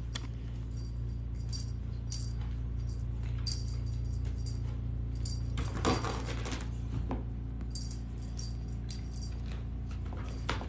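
A cat toy jingling in short, irregular shakes as cats bat and swat at it, with a louder knock about six seconds in.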